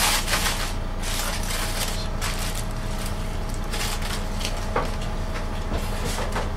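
Meat cleaver chopping barbecued meat on a cutting board: irregular sharp knocks over a steady low hum.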